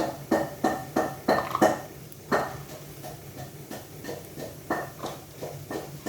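A metal utensil clinking and knocking against a frying pan and bowl as fried tempeh pieces are lifted out of the oil. A quick run of sharp, ringing clinks comes first, then softer, sparser ones.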